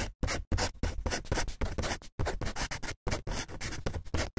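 Pen scratching across paper in quick, irregular writing strokes that stop and start.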